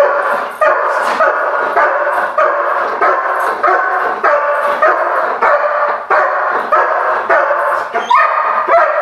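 A protection-trained German Shepherd barking steadily at a person it has found hiding, about two barks a second. This is a bark-and-hold: the barking keeps the person in place and signals the find.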